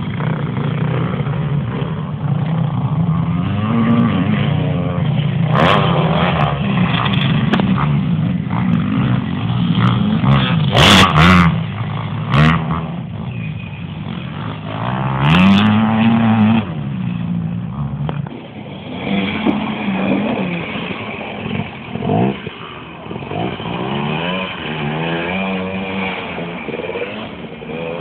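Motocross bike engines revving up and down, their pitch rising and falling again and again as the bikes ride, with a few loud sharp cracks around the middle.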